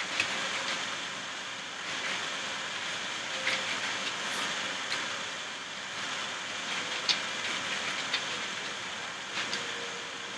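A steady hiss with a few soft, irregular clicks and taps scattered through it.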